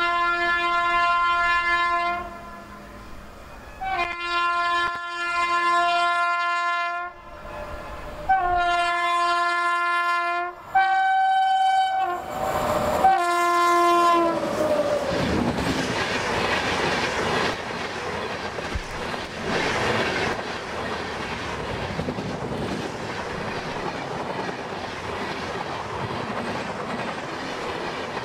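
Train's locomotive horn sounding a series of long blasts, one of them on a higher note. Then the train passes close by: a steady rush of coaches with the clickety-clack of wheels over rail joints.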